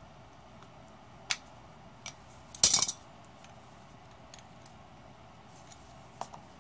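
Pliers and metal parts clicking and clinking against a 10MT starter's armature shaft and pinion drive while a retaining ring is worked toward snapping into place: a few sharp clicks, with a short loud clatter of metal about two and a half seconds in.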